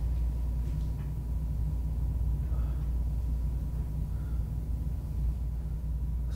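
A steady low rumbling hum with a faint, thin, steady tone above it, unchanging throughout.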